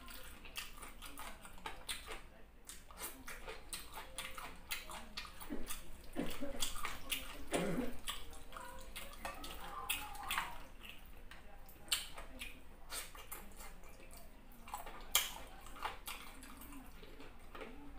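Close-up eating sounds: wet smacking and chewing of fufu and chicken, with fingers squelching through the soup-soaked food and many small clicks from the mouth.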